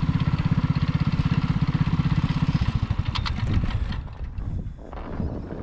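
Coleman CT200U minibike's single-cylinder four-stroke engine idling with a rapid, even pulse; about three seconds in it drops away, leaving wind on the microphone.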